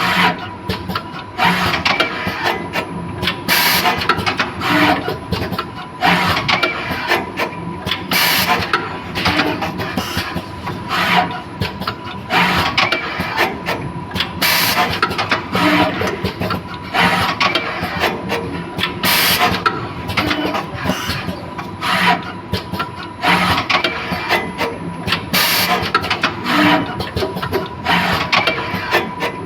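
Automatic wire soldering machine running through its cycle: a steady mechanical whir with short hissing air releases and clatter repeating every second or two, over a thin steady tone.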